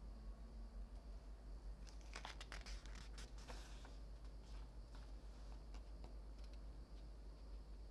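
Paper pages of a photobook being turned by hand: a short rustle and flutter of paper about two seconds in, then a few light touches on the page, over a faint steady low hum.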